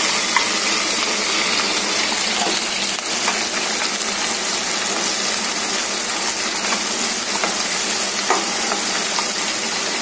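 Chopped onions sizzling steadily in hot oil with whole spices in a kadai. A metal spatula stirring them scrapes or taps the pan now and then.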